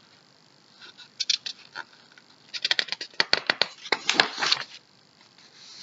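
Paper pages of a hardcover picture book rustling and crackling as the book is handled and a page is turned. There are a few scattered crackles at first, then a denser run of rustling for about two seconds in the middle.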